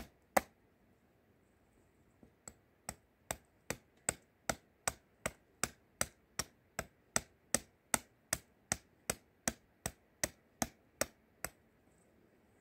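A small hammer striking a steady run of sharp knocks, about two and a half a second, into wood as a wooden spoon blank is roughed out. After one blow at the start and a pause of about two seconds, the blows run on and stop about a second before the end.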